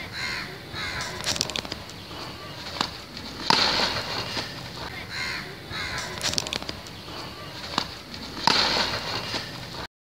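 Crows cawing in short runs of a few caws, with a few sharp knocks. Twice the caws are covered by a louder burst of rushing noise.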